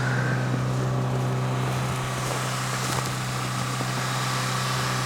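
A steady low machine drone with an even hum that holds one pitch throughout.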